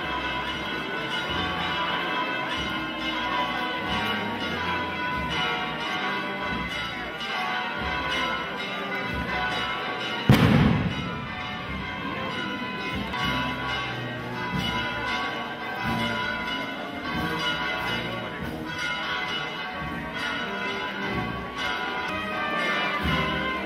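Church bells ringing continuously, many strikes overlapping. About ten seconds in there is one sudden loud thump, whose sound dies away over about a second.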